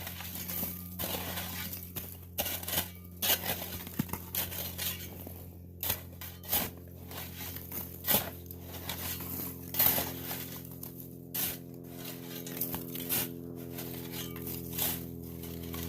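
Shovel chopping and scraping into hard icy snow, with irregular sharp strikes and clinks of breaking ice chunks.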